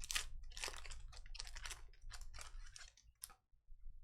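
Trading cards being flipped and slid through by hand: a quick run of dry clicks and rustles that stops about three seconds in.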